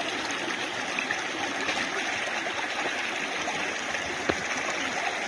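Creek water rushing steadily, with one light knock about four seconds in.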